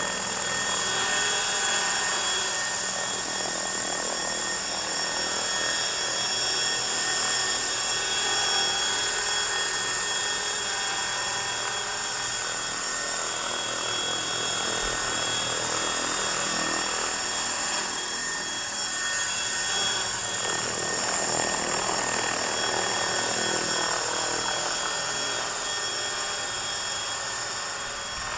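Frenzy 600E electric RC helicopter on a 5S battery hovering and flying about: a steady high motor whine over the whir of the rotor blades, fading a little near the end.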